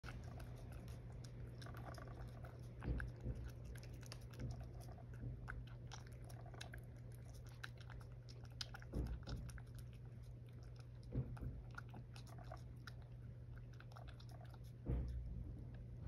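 A cat chewing wet food from a dish, close to the microphone: a quick run of soft chewing clicks with about four louder thumps spread through it, over a steady low hum.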